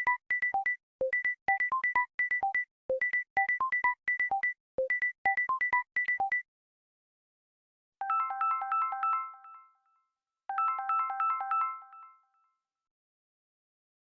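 Samsung Galaxy phone ringtones playing. First comes a quick melody of short electronic beeps, repeated in phrases about two seconds long, which stops about six seconds in. After a short pause a different chiming melody plays twice, each time fading out.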